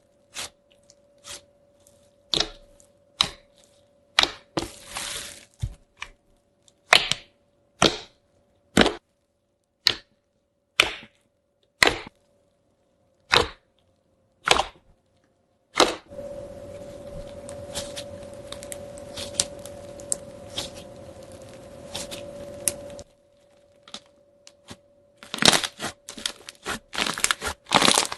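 Slime being pressed and pulled, giving sharp pops about once a second, then a steady hiss for several seconds, then a quick run of crackling pops near the end. A faint steady hum sits underneath.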